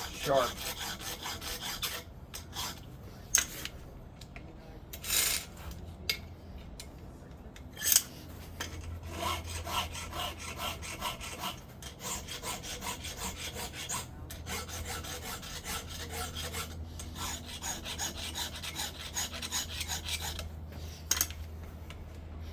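Hand file stroking across the cutting teeth of a chainsaw chain, sharpening it: repeated rasping strokes, a few separate louder ones at first, then a quicker run of short strokes through the second half.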